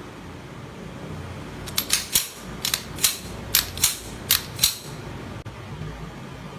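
Metallic clicks of a restored Tokarev TT-33 pistol's action being worked: about ten sharp clicks over some three seconds, several in quick pairs, over a steady low hiss.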